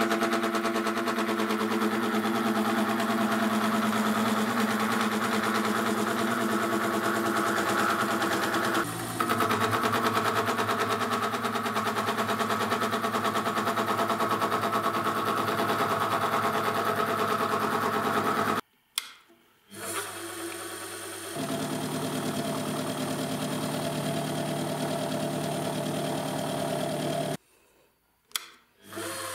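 Wabeco F1200 milling machine running with a disc-shaped slot cutter cutting a groove into a metal block: a steady machine whine with a fine, rapid chatter from the cutter teeth. The sound cuts out abruptly twice for about a second, in the second half.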